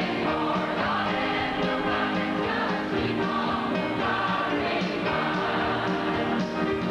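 Senior adult mixed choir of men's and women's voices singing a gospel song together.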